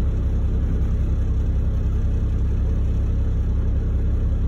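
Log truck's diesel engine idling, a steady low rumble heard inside the cab.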